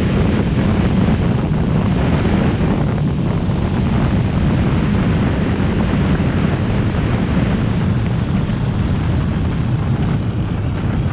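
Steady wind rush buffeting the microphone of a 360 camera on a motorcycle riding at road speed, with the bike's running noise underneath.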